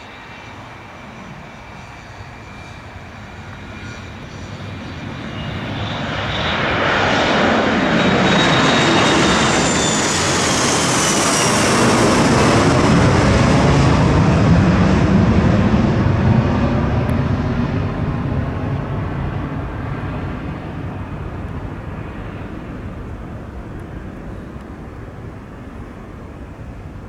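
Embraer ERJ-145LR regional jet's two Rolls-Royce AE 3007 turbofans at takeoff power as the jet passes. The noise builds over several seconds and peaks about halfway through, while a high whine slides down in pitch as the aircraft goes by. It then slowly fades away.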